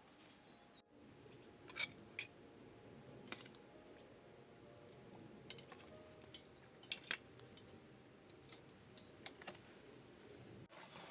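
Spoons and cutlery clinking against dishes as people eat, a scattered series of short sharp clinks over a faint background.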